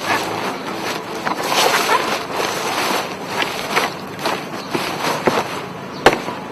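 Gusty wind buffeting the microphone, with scattered knocks and one sharp snap about six seconds in.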